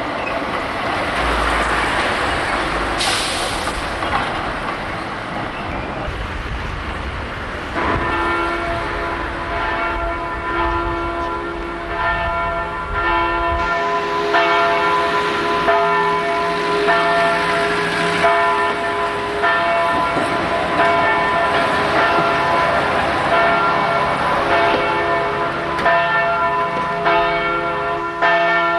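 Noise of a tram going by in street traffic for the first several seconds, then a chiming, bell-like melody of held tones in chords that carries on to the end.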